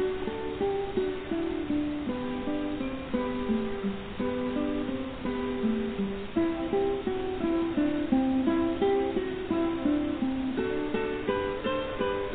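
Background music: a plucked string instrument, guitar-like, playing a melody of short notes.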